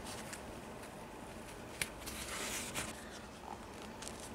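Faint handling noise of foam insoles and knit sneakers being moved in the hands, soft rubbing with one short click about two seconds in.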